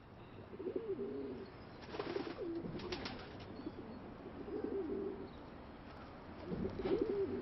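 Domestic pigeons cooing in a loft, a run of low, warbling, repeated coos from several birds.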